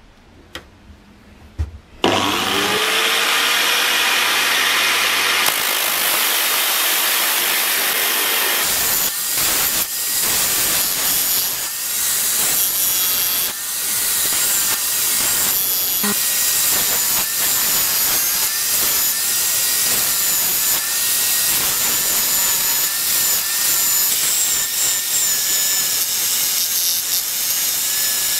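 Electric drill spinning a sanding disc with the steel hammer head pressed against it: a continuous rough, scraping grind of abrasive on metal. The tool starts up about two seconds in.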